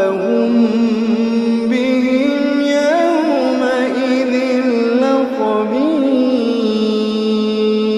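Wordless chanted vocal: a voice holds long, ornamented notes that glide slowly up and down, in the melodic style of Quranic recitation.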